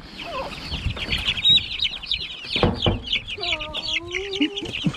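A brood of young chicks peeping, many rapid high chirps overlapping without a break.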